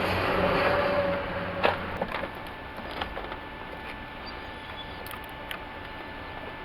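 A few light clicks and knocks of a battery cable terminal and bolt being handled and fitted onto a car battery, over a steady low hum that fades out about two seconds in.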